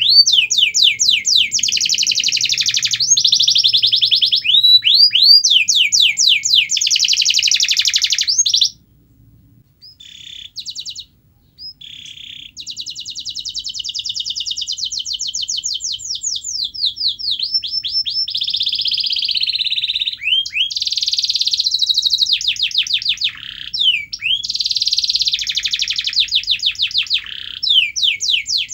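Domestic canary singing a long song of fast high trills and rolls, each roll a rapid run of repeated sweeping notes. The song breaks off for a few seconds about a third of the way in, then resumes.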